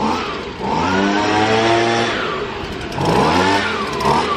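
Leaf blower being revved up twice, its pitch rising, holding, then falling away each time.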